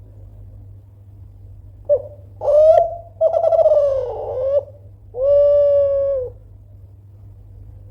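Spotted dove of the Kelantan song line (derkuku/tekukur) cooing one loud phrase. There is a short note about two seconds in, then two rougher coos, and the phrase ends on one long, steady coo.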